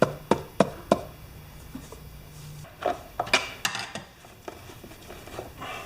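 Sharp metallic clicks and clinks of tools and parts being handled: four quick ones in the first second, then a few more about three seconds in.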